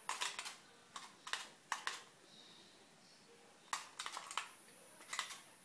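Scattered light clicks and taps, in small clusters of two or three, over a quiet background, with a faint high tone about halfway through.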